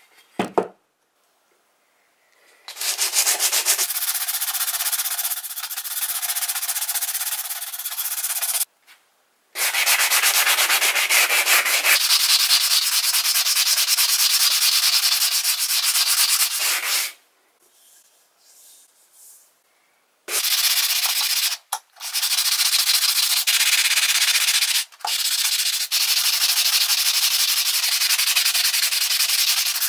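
A sanding block rubbed by hand, back and forth over the painted, rusty steel head of a hatchet clamped in a vise, scouring off old paint and rust. The scratchy rasp runs in long spells and stops briefly a few times, with the longest pause about two thirds of the way through.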